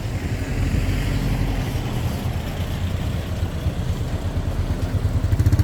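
A motor vehicle engine running: a steady low rumble.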